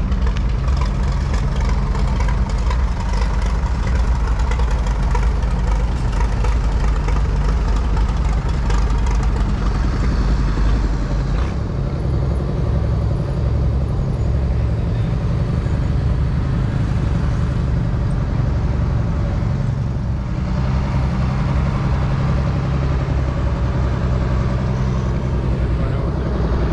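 Steady low engine rumble of a running machine, with the low pitch shifting slightly about halfway through and again later on.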